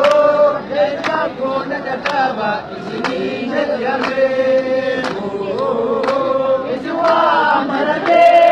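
A large crowd chanting and singing together in unison, with a sharp beat about once a second. The voices get louder near the end.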